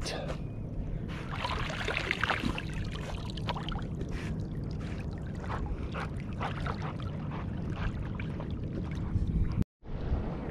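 Shallow bay water sloshing and lapping right at the microphone at the surface, with light splashes over a steady low rumble of water and wind. The sound cuts out for a moment near the end.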